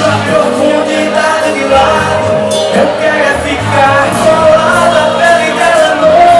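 Live band playing a song at full volume.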